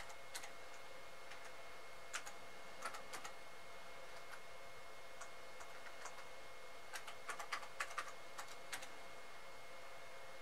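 Computer keyboard keys being typed: scattered single keystrokes, a few around two to three seconds in, then a quicker run of several keys about seven to nine seconds in.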